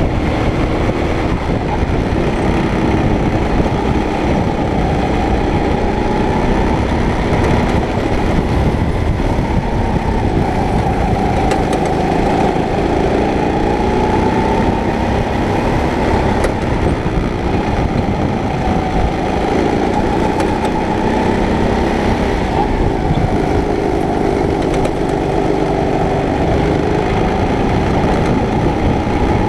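Racing kart's engine heard from on board the kart, running hard with its pitch rising and falling as the kart accelerates and slows, over rough low rumble and wind noise.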